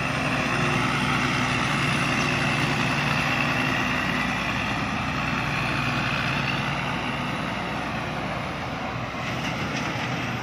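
Rice combine harvester running steadily while cutting lodged rice: an even engine and machinery hum with a faint high whine.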